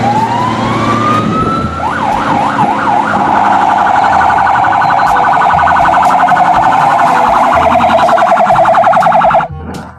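Fire-engine siren sound: a wind-up rising in pitch, a few slow wails, then a fast warbling yelp that cuts off suddenly near the end.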